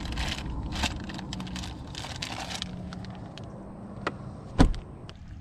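Plastic soft-bait packages crinkling and rustling as a tackle bag in a bass boat's storage compartment is rummaged through, over a low steady hum. Then the carpeted compartment lid shuts with one sharp knock near the end.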